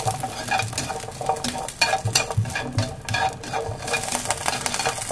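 Diced Chinese sausage stir-fried in a dry non-stick pan: a spatula scrapes and taps against the pan in quick, irregular strokes over a light sizzle as the sausage renders its fat.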